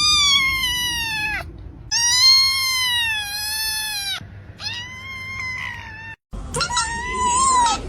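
A kitten crying with long, high-pitched meows, four in a row, each about a second and a half long; the last, after a brief break, wavers up and down.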